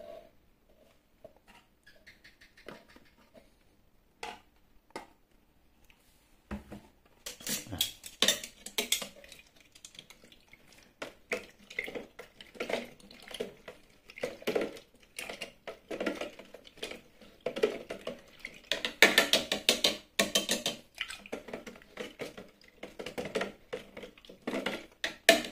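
A hand stirring and squeezing cut noni fruit in water and molasses inside a glass jar: irregular sloshing and squelching, with the fruit knocking against the glass, starting about six seconds in after a few faint ticks.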